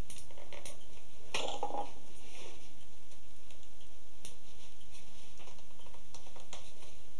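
Thin split-pine strips rustling and crackling in short bursts as they are pulled through the coils while a coiled pine basket is stitched, the loudest rustle about one and a half seconds in, over a steady low hum.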